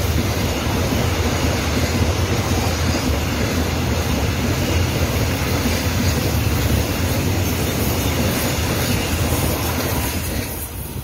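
Container freight train's flat wagons rolling past close by, a steady loud rumble of wheels on the rails. The noise falls away near the end as the last wagon passes.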